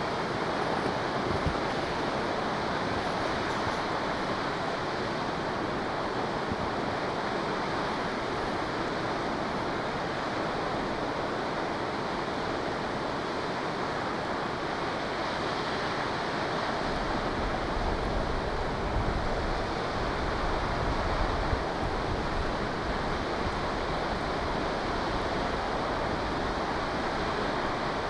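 Akiu Great Falls waterfall pouring, a steady rushing noise. From about two-thirds of the way through, a low rumble of wind on the microphone joins it.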